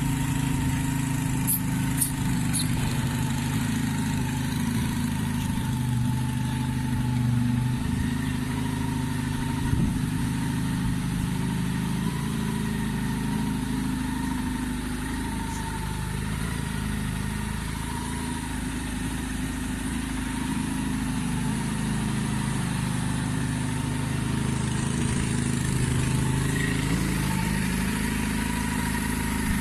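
Inline four-cylinder engine of a Honda CB converted to a cafe racer, idling steadily through an unrestricted aftermarket exhaust.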